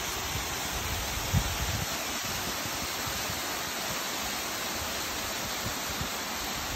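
Steady rushing of a waterfall spilling off a rock ledge into a pool below, with a short low thump about a second and a half in.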